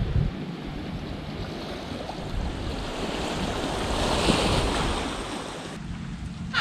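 Small waves washing onto a sandy beach, with wind on the microphone; the wash swells about four seconds in and drops away near the end.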